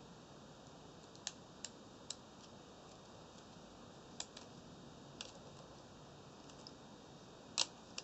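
Small plastic clicks and taps from a clip-on fan unit for air-conditioned work clothing being handled: a few scattered clicks in the first half and a single louder clack near the end, over a faint steady hiss.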